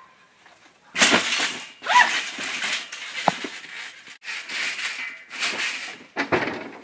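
A person landing heavily on a backyard trampoline after dropping from a tree. Two loud crashes come about a second apart, followed by further bumps and scuffling on the mat.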